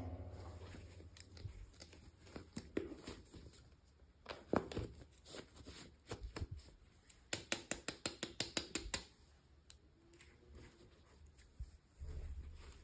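Hands handling and opening toy packaging, with scattered rustles and knocks and a quick run of about a dozen sharp clicks a little past the middle.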